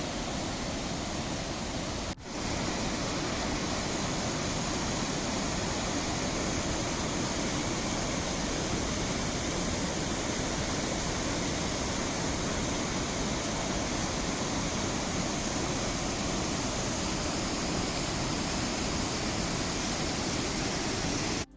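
Steady rush of a river waterfall, a dense even roar of falling water. It drops out for a moment about two seconds in, then carries on unchanged.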